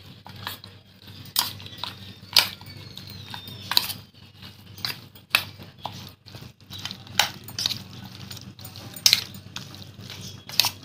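Raw goat meat being mixed by hand with curd and spices in a steel bowl: a soft wet squelching broken by sharp clinks against the metal bowl about once a second.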